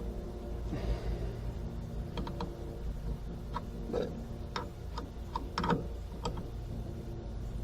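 Irregular light clicks and clinks of hand tools and cable hardware being handled while old battery cables are unbolted, over a steady low hum.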